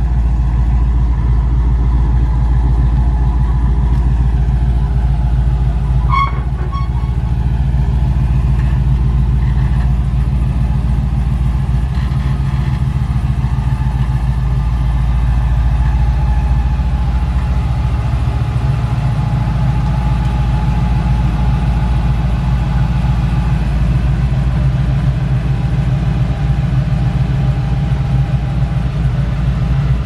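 A car engine idling steadily, with a brief metallic clink about six seconds in.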